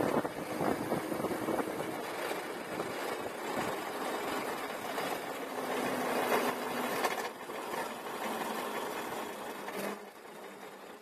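Razor Ground Force electric go-kart driving along an asphalt street: rough road and wind noise on the microphone with a faint motor hum, fading out near the end.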